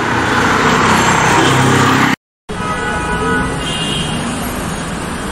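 Busy city street traffic: steady engine and road noise with short horn toots. The sound drops out for a moment a little over two seconds in, where the recording cuts.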